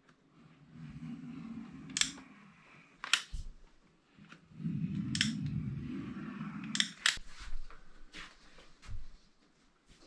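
Hand work on metal parts: a few sharp clicks or snips, with two spells of low rubbing or scraping between them.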